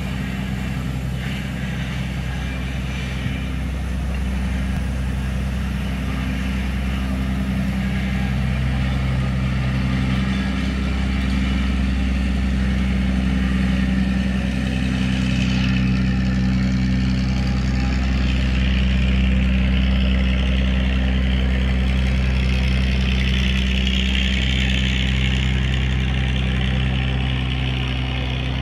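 Engine of a river car ferry running steadily, a low, even hum with little change in pitch.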